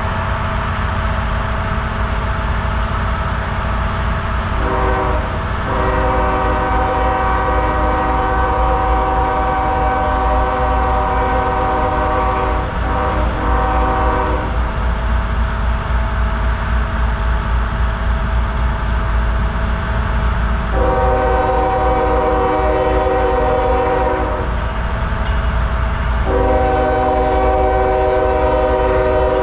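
CSX diesel locomotive's multi-chime air horn sounding a chord in several blasts. A long blast of about nine seconds starts about five seconds in, another of about four seconds comes about twenty seconds in, and a third begins near the end. A steady low rumble of the train runs underneath.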